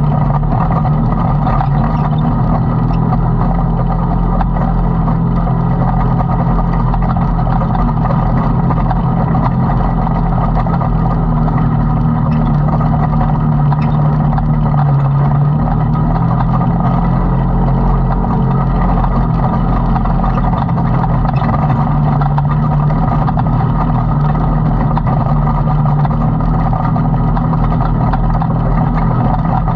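Side-by-side UTV's engine running steadily as it drives along a dirt trail, heard from inside the open cab with tyre and wind noise.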